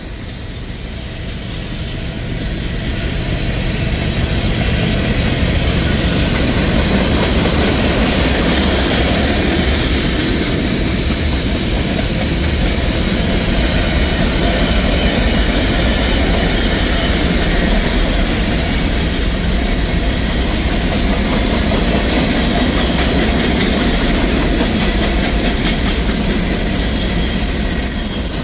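A mixed freight train's cars rolling past close by, a steady rumble of steel wheels on rail that builds over the first few seconds. A high wheel squeal sounds about two-thirds of the way in and again near the end.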